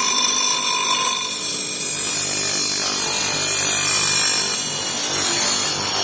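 A power tool grinding steel, running steadily with a high, ringing edge.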